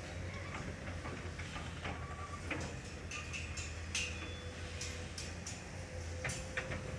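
Steady low engine hum of a working excavator, with scattered light ticks and taps over it.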